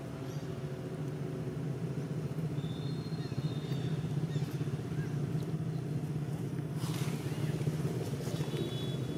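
An engine running with a steady low rumble, with a short scuff about seven seconds in.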